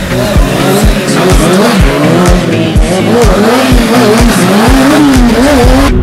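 Sport motorcycle engine revving up and down as the rear tyre spins and slides on a dusty floor, under music with a steady thumping beat about twice a second.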